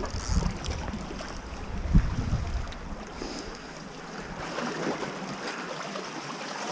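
Wind buffeting the microphone over sea washing against shoreline rocks, with a single knock about two seconds in. The wind rumble drops away after about three seconds, leaving a steady hiss of moving water.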